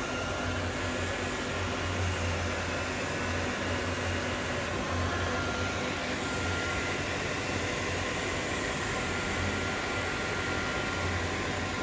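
Maho MH 600 tool-room milling machine running its vertical axis at feed rate: a steady machine drone with a low hum and a thin high whine.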